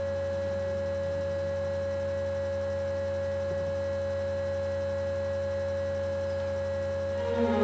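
A pause in the string orchestra's playing, filled only by a steady electrical hum with a constant mid-pitched tone. The bowed strings come back in near the end.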